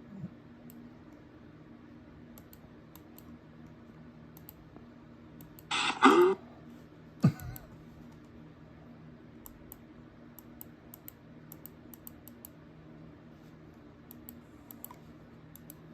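Faint, scattered light clicks over a steady low hum. About six seconds in there is a short loud burst of noise, and a sharp knock follows about a second later.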